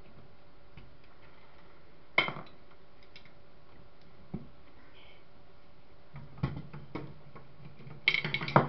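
Small metal parts and tools clinking and clattering as a CCTV camera's pan mechanism is taken apart by hand: one sharp clack about two seconds in, a few lighter clicks, then a quick run of clatter near the end.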